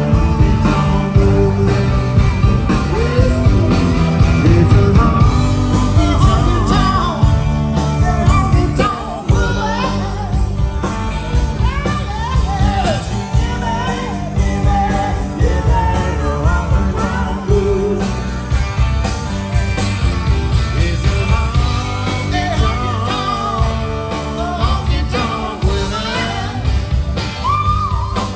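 Live rock band playing loudly through a PA, with electric guitars, drums and a sung lead vocal.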